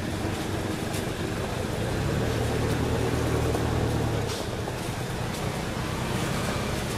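Steady rumble of a motor vehicle engine, growing louder about two seconds in and easing off after about four seconds.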